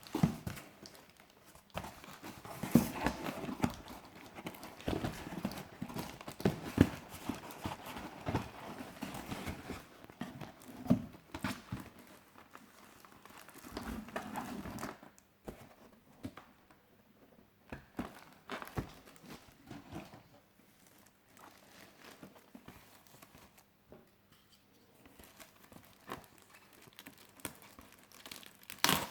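Packaging of a diecast model car being handled and opened: irregular knocks, taps and crinkling of cardboard and plastic, busy for about the first fifteen seconds, then sparser and quieter.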